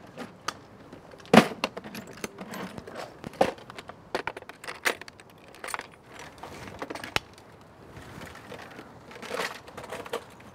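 Handling noises: scattered clicks, taps and rustles as a steel thermos and a wrapped sandwich are handled. The sharpest click comes about a second and a half in, and a rustling of the wrapper comes near the end.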